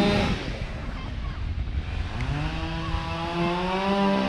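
Chainsaw revving: a first rev fades right at the start, then the engine climbs again about halfway through and holds at high revs, over a steady low rumble.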